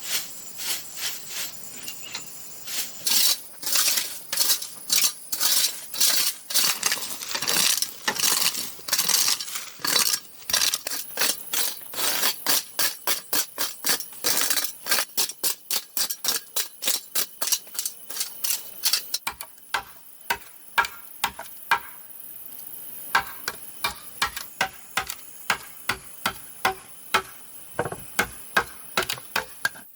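Repeated strikes of a hand tool on bamboo, about two to three blows a second. From about nineteen seconds in the knocks turn sharper and more ringing. A steady high insect shrill runs behind.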